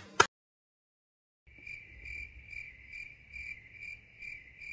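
About a second of dead silence, then crickets chirping, a steady chirp about twice a second: the comic 'crickets' sound effect marking an awkward silence.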